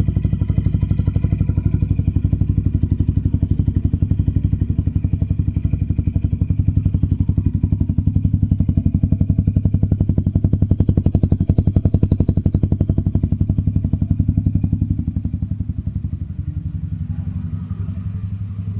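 Yamaha XMAX 300's single-cylinder engine idling steadily through a GP Racing full-titanium aftermarket exhaust, a deep, even exhaust pulse that eases slightly quieter near the end.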